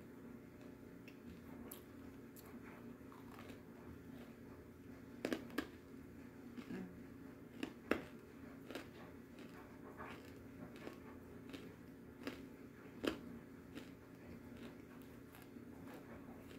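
Pieces of clay being bitten and chewed close to the microphone: scattered sharp crunches, the loudest about five, eight and thirteen seconds in, over a faint steady hum.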